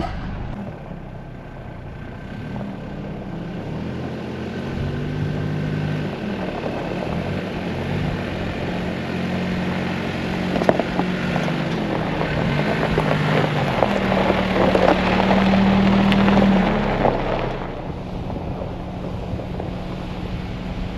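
An off-road 4x4's engine working under load on a dirt trail, its revs rising and falling repeatedly, with tyres crunching over rocks and gravel. Engine and crunching build up to their loudest near the end, then ease off suddenly.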